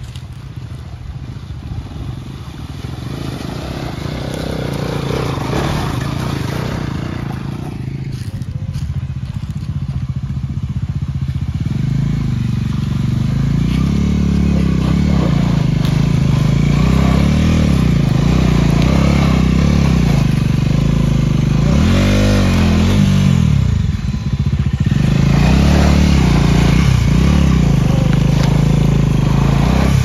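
Single-cylinder engine of a Bajaj Dominar motorcycle growing louder as it approaches, then revving up and down in low gear as it climbs a loose dirt slope.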